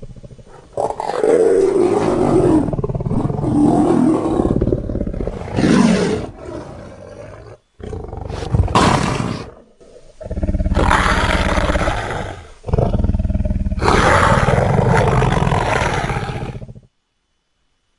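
Sound-effect roars and growls of a giant piranha monster: a string of loud, deep roars, each one to three seconds long with short breaks between them, cutting off about a second before the end.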